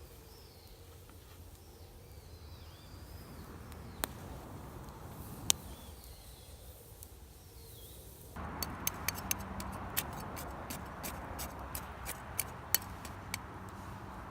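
Faint bird calls over a quiet outdoor background, with two sharp snaps. Then, a little past halfway, a campfire crackles: a steady hiss with frequent sharp pops.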